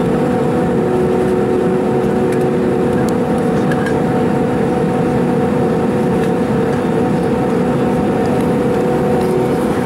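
Steady engine drone and rushing airflow inside the cabin of an Airbus A310 airliner on final approach, with a few constant hum tones running through it.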